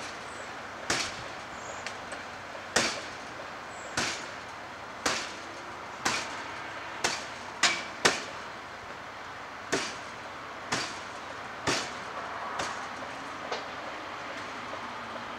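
Firefighter's hand tool striking burnt wooden deck boards, a dozen or so sharp blows about one a second: overhaul, opening up the decking to make sure the fire is out.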